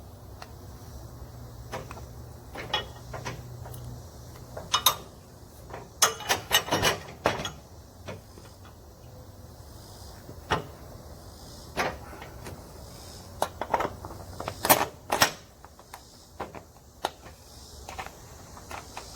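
Irregular metallic clanks, knocks and clicks of hand work on a zero-turn mower's front caster wheel, fitting the new wheel's axle bolt and spacers before tightening. The clanks come in bunches, the loudest about six seconds in and again near fifteen seconds.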